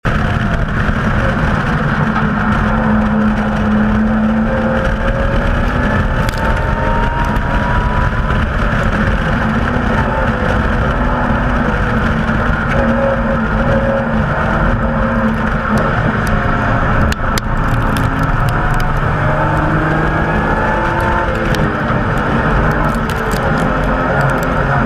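BMW M Coupe's straight-six engine pulling hard on a race track, its pitch rising and falling through the gears, over steady loud road and wind noise. A few sharp clicks come through about two-thirds of the way in and again near the end.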